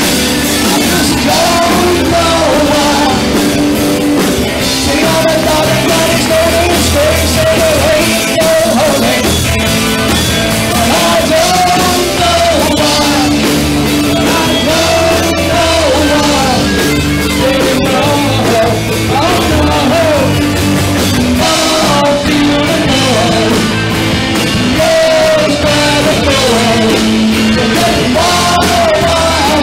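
Live rock band playing a song: electric guitar, drums and a singer carrying the melody throughout.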